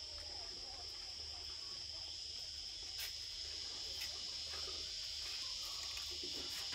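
Steady, high-pitched drone of insects, with two short clicks about a second apart near the middle.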